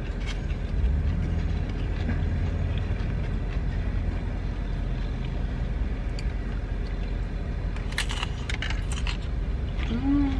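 Steady low rumble of road traffic heard inside a closed, parked car. A few short clicks of food and utensils being handled about eight seconds in, and a short hummed "mm" while chewing near the end.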